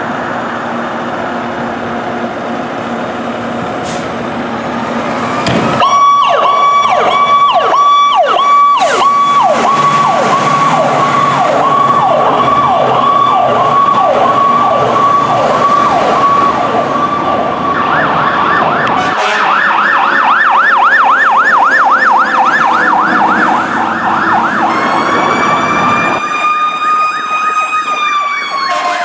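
Fire truck sirens on an emergency response. A few seconds of a truck's engine running give way to a siren: first a steady tone over repeated falling sweeps, then about two-thirds of the way in a fast up-and-down yelp. Near the end comes a slower siren tone that rises and then falls.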